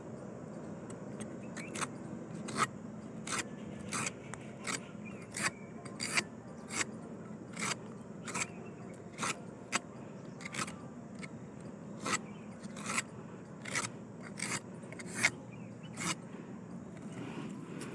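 Sharp rasping scrapes in a steady rhythm, about three every two seconds: a toddy tapper's knife shaving the flower stalk of a palmyra palm.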